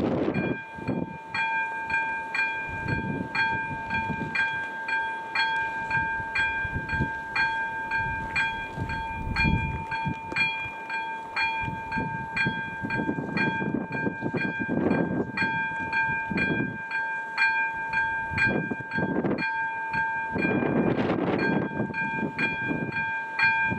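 AŽD ZV02 electronic level-crossing bell ringing in rapid, evenly spaced dings, sounding the warning while the red lights flash for an approaching train. A low rushing noise swells under it a few times, most strongly near the end.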